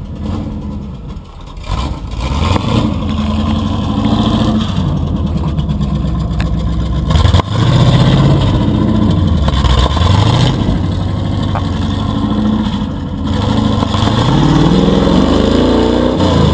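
Chevy Blazer mud truck's 350 small-block V8 revving up and dropping back again and again as it climbs a rutted dirt hill under load, with a single sharp knock about halfway through.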